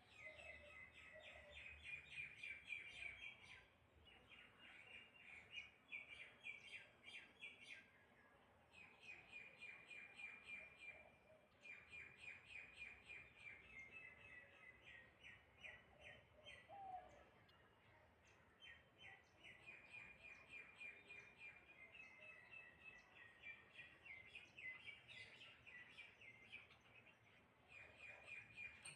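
Small birds chirping in quick runs of short notes, each run lasting a second or two with brief pauses between. The chirping is faint.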